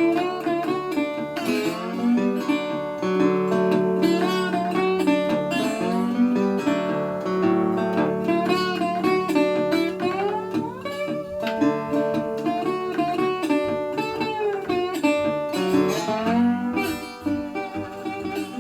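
Instrumental guitar break in a country song: strummed acoustic chords under a melodic lead whose notes slide up and down in pitch.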